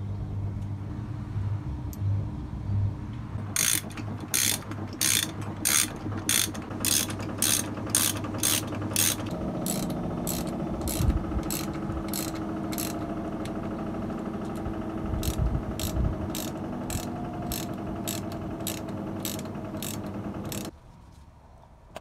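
Socket ratchet clicking in steady runs, about two to three clicks a second, as new spark plugs are wound into the plug wells of a Toyota 7A-FE four-cylinder engine.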